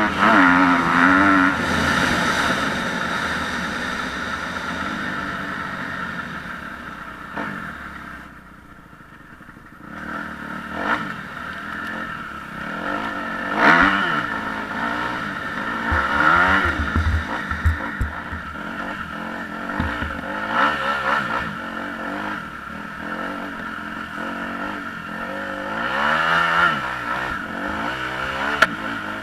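Kawasaki KX250F's single-cylinder four-stroke engine breathing through an FMF Megabomb exhaust, revving up and down as the dirt bike is ridden hard. The engine dies away to a lull about eight seconds in, then comes back with repeated sharp throttle bursts.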